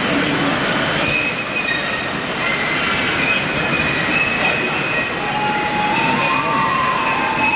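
Train wheels squealing over a continuous rolling noise, with several high, drawn-out squeal tones that grow stronger in the second half.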